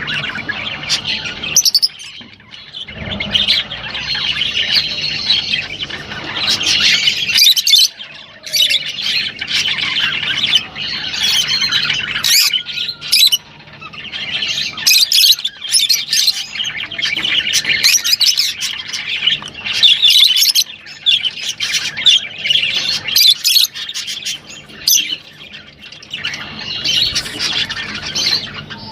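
Rosella parrots calling: a busy run of chattering, squawks and short whistled notes with brief pauses between bouts.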